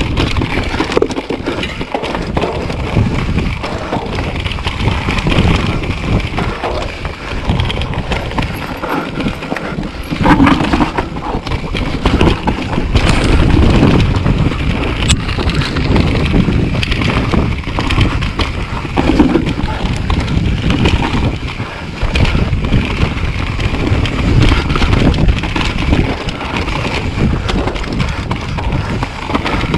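Mountain bike riding down a dirt singletrack: a continuous rumble of the tyres over dirt and roots, with frequent knocks and rattles from the bike and wind buffeting the microphone.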